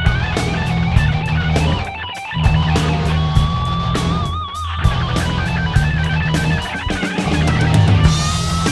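Rock music: electric guitars and bass over a steady drum beat, with a sustained, wavering lead guitar line.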